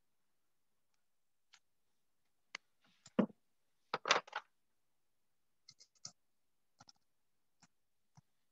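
Faint, scattered clicks and taps, about a dozen at uneven intervals, with a louder clatter of knocks about three to four seconds in.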